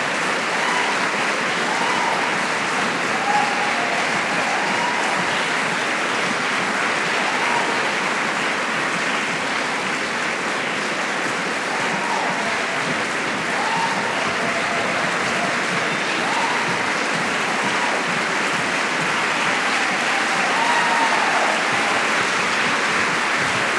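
Large audience applauding steadily, with a few cheering voices rising and falling over the clapping now and then.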